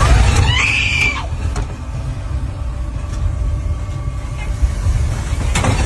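Deep, continuous rumble of an earthquake shaking the ground, with a few sharp knocks and rattles and a short high-pitched cry about half a second in.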